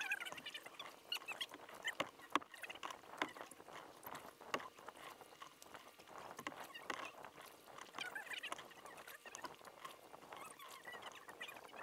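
Kayak paddle strokes in calm water: the blade dips and splashes, with many small drips and ticks of water falling from the paddle between strokes.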